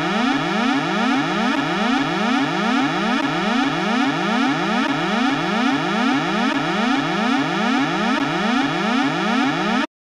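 Spaceship 'power source detected' alarm sound effect: a buzzy electronic tone that sweeps up in pitch over and over, about two sweeps a second, and cuts off suddenly near the end.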